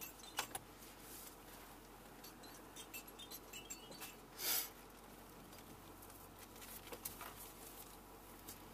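Quiet pickup-truck cab with scattered small clicks and a brief rustle about halfway through, from the driver handling the steering wheel and controls.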